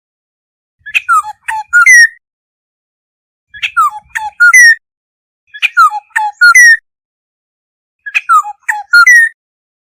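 Black-hooded oriole calling: four short phrases of a few clear, gliding whistled notes, repeated about every two and a half seconds with silence between them.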